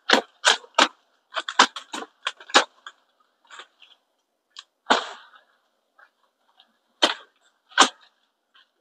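Sharp cracks and snaps of coffee tree branches being cut off with a knife during pruning, coming irregularly and in quick clusters. About five seconds in there is one longer crackling rustle of a branch and its leaves coming away.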